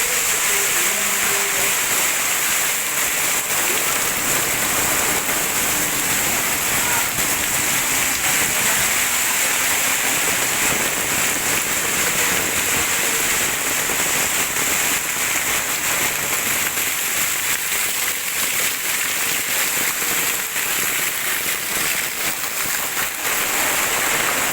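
Heavy rain pouring steadily, a dense, even hiss of countless drops striking surfaces.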